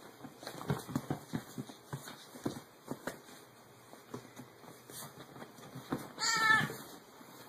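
A run of short taps and scuffles as a small monkey grapples with cats on a sofa, then a cat gives one loud meow about six seconds in.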